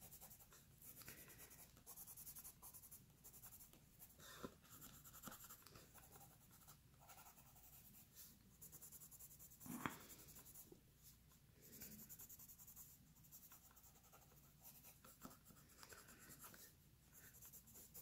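Faint scratching of a Prismacolor colored pencil shading on paper in quick short strokes, with a single soft knock about ten seconds in.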